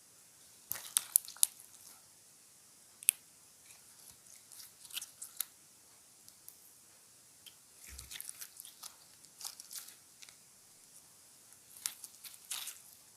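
Clear slime being mixed, giving sticky crackles and sharp popping clicks in irregular clusters. The loudest pops come about one and three seconds in.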